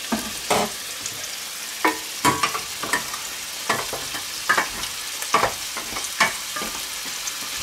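Steady sizzle of fillet medallions and mushrooms frying in a pan. Over it come about eight irregular knocks and clinks as a spoon stirs vegetables in a steel saucepan.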